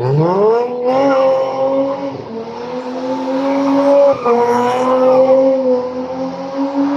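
A car engine revs sharply up in the first second and is then held at high revs with a brief dip about four seconds in, while the tyres squeal and spin in a burnout or donut.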